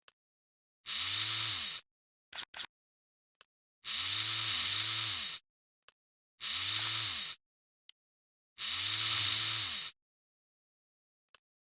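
Four separate bursts, each about a second long, of a rasping, whirring tool noise, with a few short clicks between them and dead silence in the gaps.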